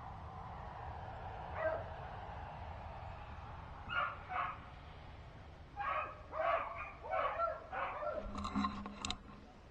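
Rabbit-hunting dogs barking in scattered calls: one bark a little under two seconds in, a pair around four seconds, then a quick run of barks and yips from about six to nine seconds.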